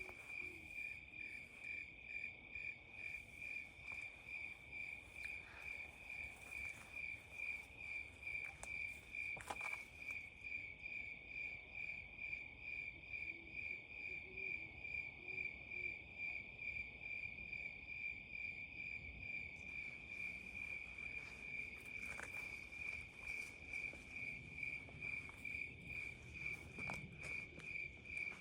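Crickets chirping steadily at night: one high, even note pulsing about twice a second, with a couple of faint clicks.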